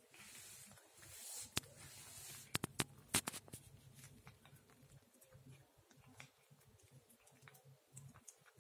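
Domestic cat chewing small pieces of food, heard as faint irregular clicks and ticks. A rustle in the first couple of seconds and a few sharp clicks about two to three seconds in are the loudest sounds.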